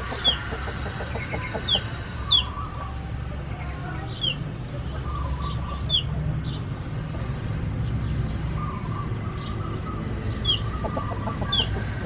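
Chickens clucking, with short high falling chirps every second or so, over a steady low background rumble.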